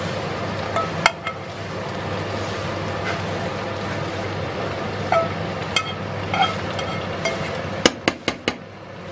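Cabbage stewing in a large pan with a steady sizzling bubble, while a metal spoon scrapes and clinks against a small frying pan as the tomato-paste oil is spooned out. Near the end, four quick sharp metal knocks.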